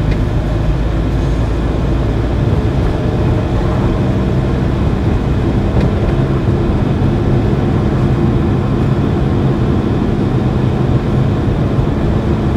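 Steady engine and road noise of a Renault car cruising along a road, heard from inside the cabin.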